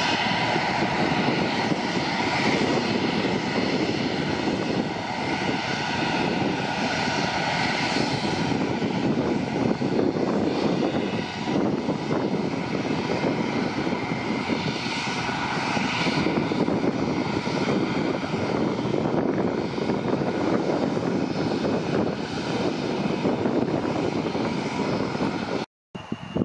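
Boeing P-8A Poseidon's twin CFM56 turbofans at high power as it rolls down the runway and climbs away on a touch-and-go: a loud, steady jet roar with a faint high fan whine. The sound breaks off abruptly for a moment near the end.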